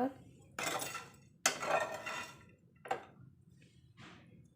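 Kitchen utensil on a plate: a spoon or spatula scrapes and handles food on a dish. There are two scraping sounds of about a second each, then two shorter ones.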